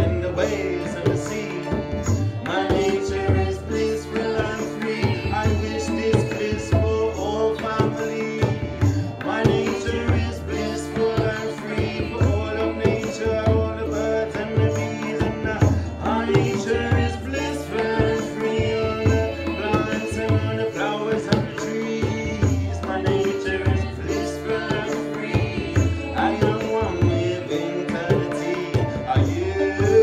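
Tabla played in a steady rhythm, with deep bass strokes from the larger drum, over a harmonium's sustained chords and a plucked harp, while several voices sing together.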